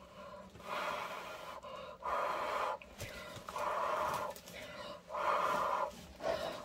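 A person blowing hard, breath after breath, across wet acrylic paint on a tile to push out a bloom: a series of five or six short rushes of breath, each under a second, with brief pauses between.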